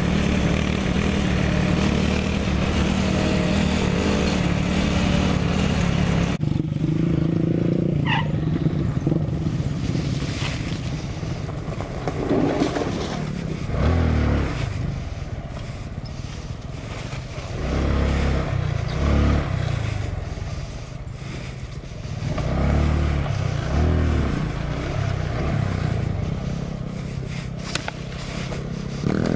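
Small single-cylinder mini motorcycle engines running at a steady speed, then, from about six seconds in, one mini bike ridden on a dirt trail, its engine revving up and falling back again and again, with low rumbles and knocks from the rough ground.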